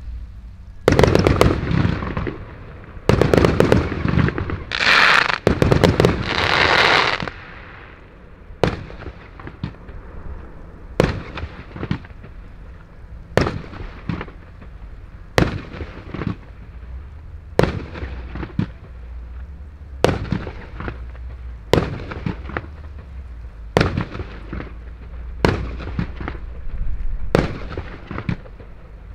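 Röder 'Lets Fetz' fireworks compound cake (146 shots, calibre up to 30 mm) firing. For the first seven seconds or so it fires a dense volley of rapid shots with two long hissing, crackling swells. After that come single sharp shots, about one every second or so.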